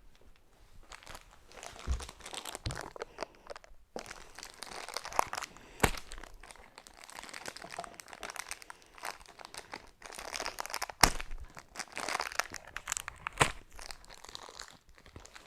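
Plastic toy packaging crinkling as it is handled and pulled open, with about five sharp clicks or snaps along the way.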